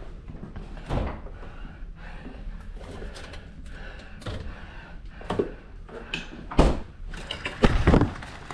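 A few scattered knocks and thumps, the loudest a cluster near the end.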